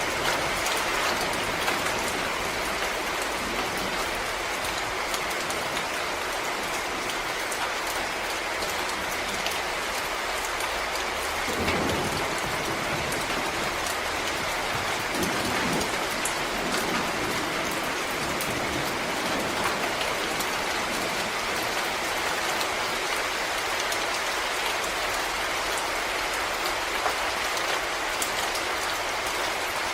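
Steady rain falling on forest leaves and ground, an even patter throughout. Two brief low rumbles come in, about twelve seconds in and again around sixteen seconds.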